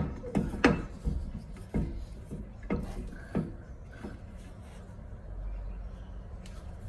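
A handful of sharp metal clicks and knocks from a G-clamp being wound in against a disc brake caliper piston, pressing it back into its bore to make room for new pads. The clicks come in the first three and a half seconds and then give way to a low, steady background.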